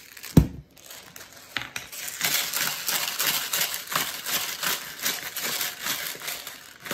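A hand-twisted spice grinder cracking and grinding seasoning, a rapid gritty run of clicks that starts about a second and a half in. A single low thump comes about half a second in and is the loudest sound.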